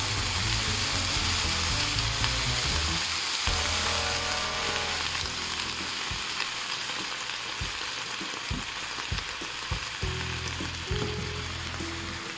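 Asparagus, shallots and garlic sizzling in olive oil in a skillet. The sizzle is hardest in the first few seconds, just after red wine vinegar is splashed in, then settles to a steady frying hiss with a few light clicks.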